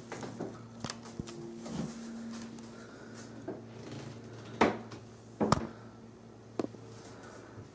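Three sharp knocks in the second half, about a second apart, with a few fainter clicks earlier, over a faint steady low hum, in a small bathroom.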